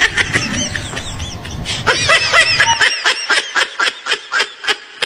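High-pitched giggling laughter, a quick run of short 'hee-hee' pulses about five a second through the second half.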